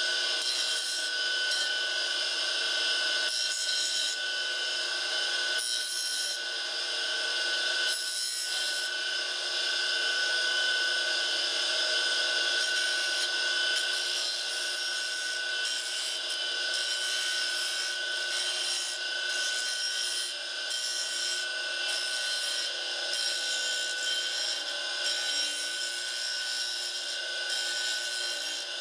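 Radial arm saw motor running a disc sander attachment, with a wooden door stop pressed against the spinning sanding disc: a steady motor whine under the hiss of abrasive rubbing on wood, which eases briefly a few times as the piece is shifted.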